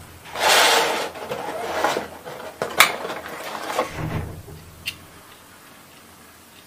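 Small plastic toy dollhouse furniture being handled and lifted out of a thin plastic packaging tray: crinkly rustling of the tray, a sharp plastic click a little before the middle, a low thump, and a smaller click, then it goes quiet.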